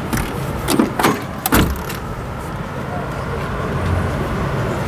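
Steady background hubbub of voices and outdoor noise at an exhibition, with three short, sharp knocks close to the microphone about a second in.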